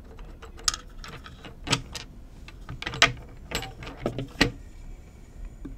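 Handling noises as a plywood mounting plate is worked up off metal threaded rods: a series of sharp wood-and-metal knocks and clicks, about six in all, the loudest about three seconds in.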